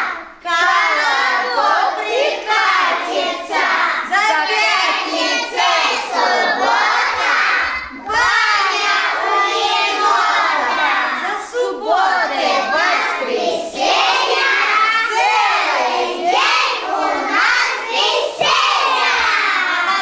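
Group of young children singing in chorus with a woman leading them.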